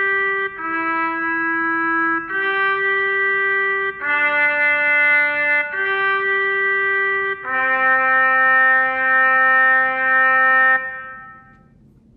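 Trumpet playing a slow, plain melody of held notes, one note after another about every second and a half, ending on a single long low note of about three seconds that stops and dies away shortly before the end.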